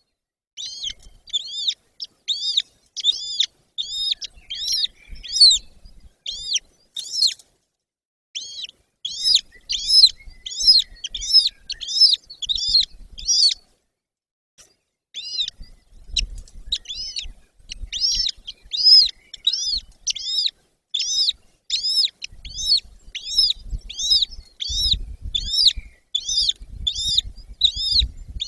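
Golden eagle chicks calling: a long run of high, thin chirps repeated about two or three times a second, in bouts with a couple of short pauses.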